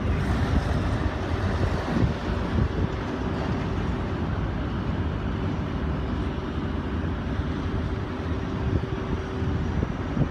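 Steady engine noise and wind on the microphone, with a steady hum coming in about four seconds in.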